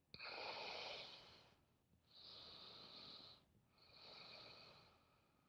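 A woman's slow, faint breaths: three breaths about a second long each, the first the loudest.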